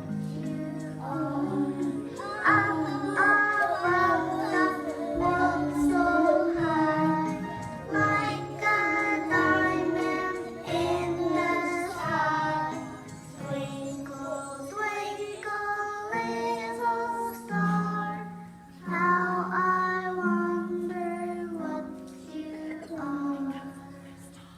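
Schoolchildren singing a Christmas song together with instrumental accompaniment, dying away near the end.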